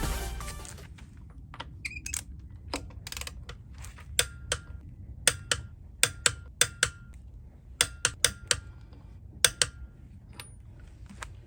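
A series of about twenty irregular sharp clicks and taps, several with a brief high ring, like small hard parts being handled.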